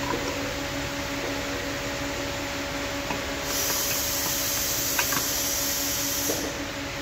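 A steady hum over a background of noise, with a high hiss that starts about three and a half seconds in and stops about three seconds later, and a few faint clicks.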